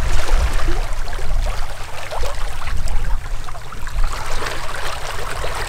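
Water rushing and splashing in a sailboat's wake, a steady, grainy hiss with small crackles, over a low, uneven rumble.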